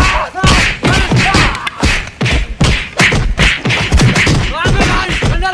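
Staged fight: a rapid run of punch and stick-hit thumps and whacks, about two to three a second, with short cries and yells between the blows.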